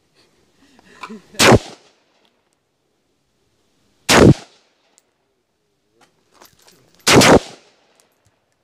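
M16 rifle firing 5.56 mm rounds: three loud shots about three seconds apart, each followed by a short echo.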